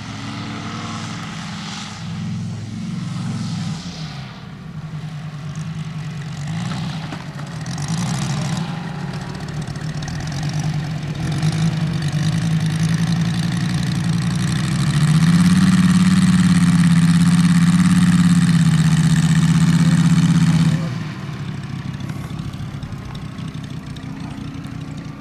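Moki radial engine of a giant-scale RC F4U Corsair running, its pitch rising and falling with the throttle. About fifteen seconds in it runs louder and higher for several seconds, then cuts back sharply.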